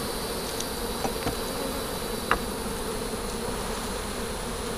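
Honeybees buzzing steadily from an open hive. A few light clicks sound, the sharpest about two seconds in, as a hive tool pries a frame loose and it is lifted out.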